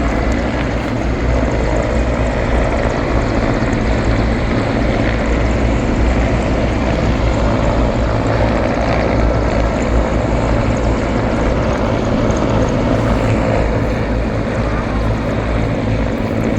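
Aircraft engine noise: a loud, steady drone with a low hum.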